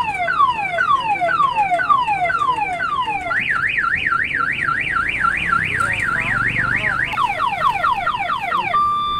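Electronic multi-tone siren, like a car alarm's sound chip, stepping through its tones. It plays a run of falling whoops about two or three a second, then a fast rising-and-falling yelp from about three seconds in, then quicker falling whoops. Near the end it switches to alternating two-note beeps.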